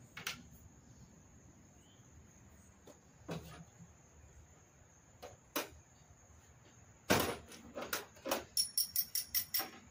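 Scattered knocks and clicks of hand tools and metal parts as a golf cart body is taken apart, with a loud clunk about seven seconds in followed by a quick run of light, ringing metallic clicks.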